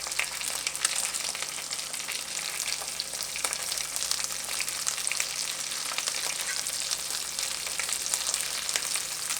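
Panko-breaded chicken tenders frying in hot olive oil in a skillet: a steady sizzle with fine, irregular crackling.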